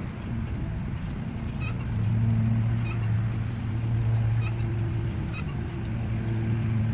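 An engine running steadily with a low hum. A few short, high bird chirps sound over it.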